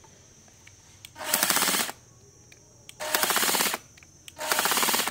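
Cordless oil-pulse impact driver, a National EZT610 electronic driver body fitted with a 7203 oil-pulse head, run in three short bursts, each under a second and about a second and a half apart, pulsing rapidly within each burst.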